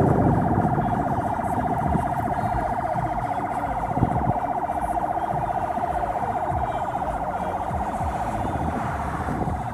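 A siren sounding a fast, steady warble over the low rumble of slow-moving traffic.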